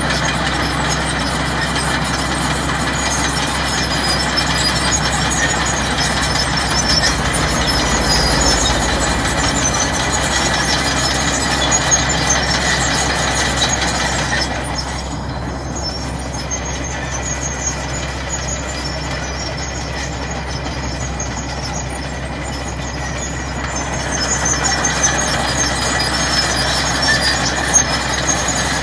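Bulldozer's diesel engine running steadily under load. It drops quieter for about ten seconds midway, then picks up again.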